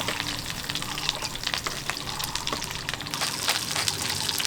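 Food sizzling and crackling on a hot hand-forged iron griddle plate, a dense, steady patter of small pops.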